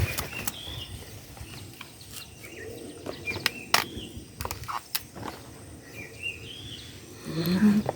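Outdoor farm ambience: a few short rising bird chirps over a low background hiss, with scattered sharp clicks and knocks.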